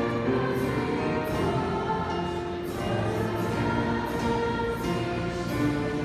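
A choir singing live, long held notes moving from chord to chord.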